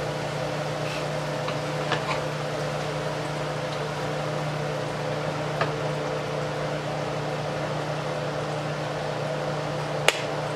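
Steady mechanical hum with an even hiss, like a running kitchen fan, with a few light clicks of a utensil on the skillet. A sharper clink near the end as the glass lid is set on the pan.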